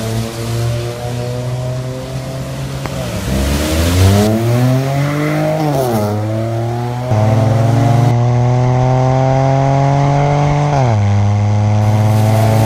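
Ford Fiesta 1.0 with a modified intake and exhaust, revving hard as it pulls through the gears: the engine note climbs, drops back at each shift (about 3, 6 and 11 seconds in), and holds a long rising pull in between.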